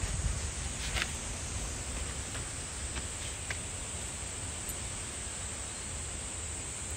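Steady outdoor background hiss with a low rumble underneath and a few faint clicks.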